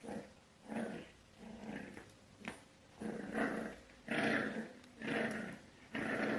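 Dog growling in a string of short grumbles, each under a second long, repeated about every second.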